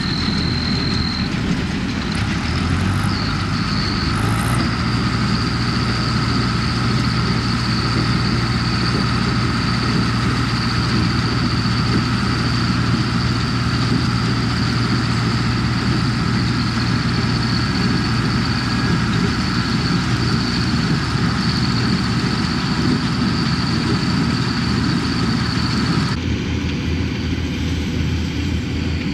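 Old tractor engine running steadily, driving a John Deere square baler. The engine note switches abruptly to a different engine sound near the end.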